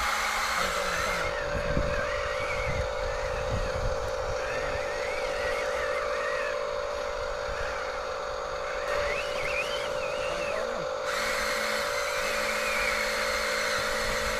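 Small electric motors of remote-control toy construction vehicles whirring with a steady whine, a higher wavering whine over it and a few low knocks in the first few seconds.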